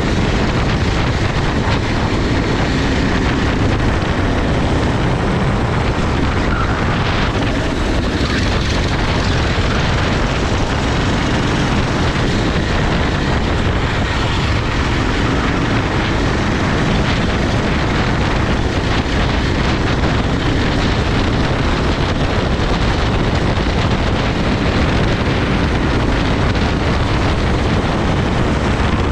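Racing kart engine running under load, heard from on board with steady wind noise on the microphone.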